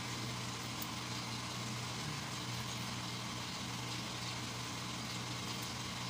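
Steady low machine hum with constant tones, as from a fan or other running machinery in the workshop, with a few faint light clicks.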